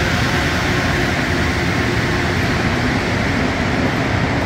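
Rubber-tyred Montreal Metro train running through the station as a loud, steady noise. A faint whine fades out in the first couple of seconds.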